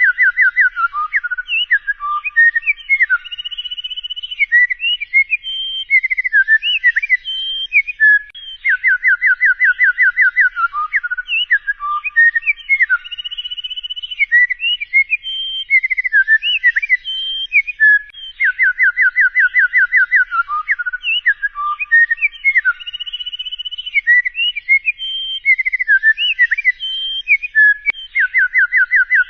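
A songbird singing a long warbling phrase: a fast trill of clear whistled notes, then several seconds of varied whistles and slides. The same phrase repeats about every ten seconds.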